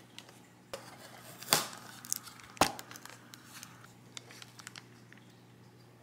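Packaging handled by hand: a paper cake box opened, then a thin clear plastic cake wrap crinkling as it is peeled off a slice of cake. There are two louder rustles about one and a half and two and a half seconds in, then lighter crinkles.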